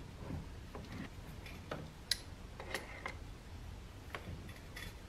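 Faint, irregular small clicks and taps of metal hose fittings on a braided stainless oil line being handled and fitted together by hand, the sharpest about two seconds in.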